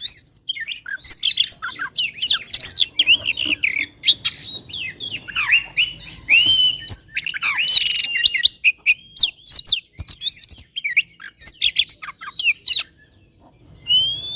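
Oriental magpie-robin singing a rapid, varied run of whistles, chirps and harsh clicks in agitated fighting song. It stops suddenly about 13 s in, and one rising whistle follows near the end.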